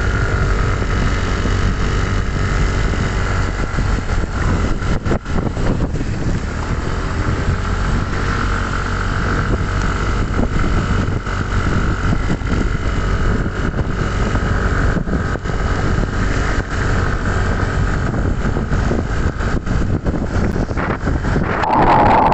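Steady running of a vehicle's engine with tyre noise on a wet road, heard from the moving vehicle, with wind noise on the microphone. A short, louder tone comes in right at the end.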